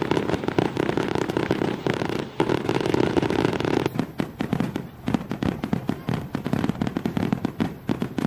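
Fireworks display: a dense, rapid run of crackling and popping reports, overlapping at first and becoming more separate about halfway through.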